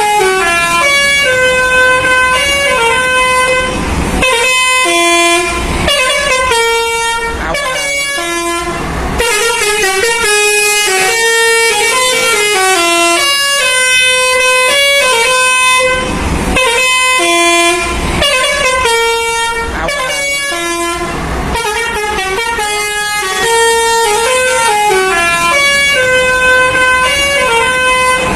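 Telolet bus horn, a multi-tone horn, playing a melody of short held notes that step up and down in pitch, the tune repeating over and over. Brief hissing bursts of noise come between some phrases.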